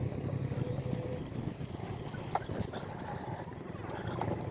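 Motorcycle engine running steadily at low revs on a rough, rocky dirt trail, with a few sharp knocks and rattles as the bike goes over stones.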